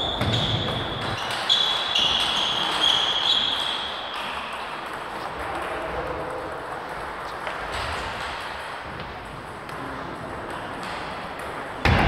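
Table tennis balls clicking off tables and bats across a hall of matches, with a few short high squeaks in the first few seconds. A loud sharp hit comes near the end.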